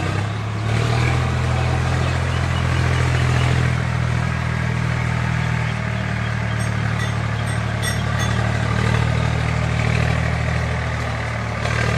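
Tractor engine idling steadily with a low, even rumble, with a few faint clicks about seven to eight seconds in.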